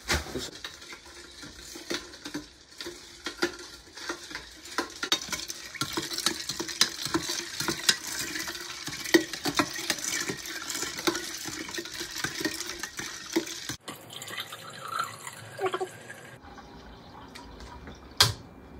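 A long spoon stirring lemonade with ice in a large glass drink-dispenser jar, with quick irregular clinks against the glass for most of the time. After a break, one sharp clink near the end.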